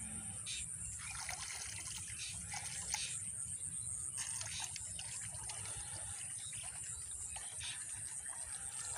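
Water splashing and dripping as a man wades through a river and hauls a wet fishing net, with irregular sloshes and drips, over a steady high-pitched buzz.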